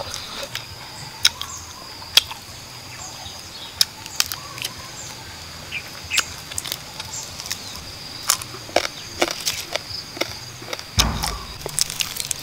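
Close-up eating sounds: a person chewing roasted quail and tearing it apart by hand, with irregular wet clicks and crunches of bone and skin. Insects buzz steadily in the background, and a dull thump comes near the end.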